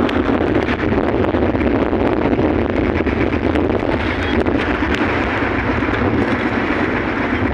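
Strong wind buffeting the microphone and rough sea water splashing, over the steady low drone of a small fishing boat's engine.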